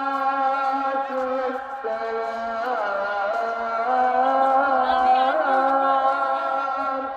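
A solo voice chanting long held notes with wavering, ornamented turns in the melody.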